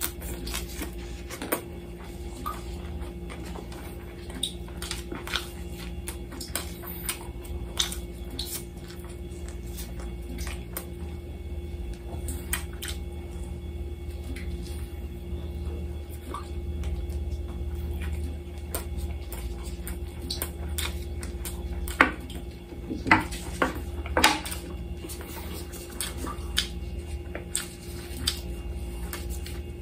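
A person eating lamb chops by hand from a glass plate, with mouth noises and scattered small clicks and clinks on the glass, and a few louder clinks a little past two-thirds of the way through. A steady low hum runs underneath.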